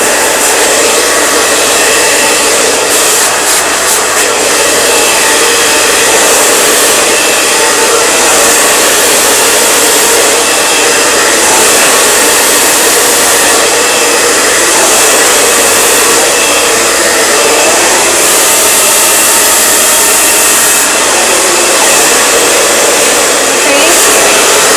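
Handheld hair blow dryer running continuously on the hair during a round-brush blowout, a loud steady rushing hiss whose high edge swells and eases every few seconds.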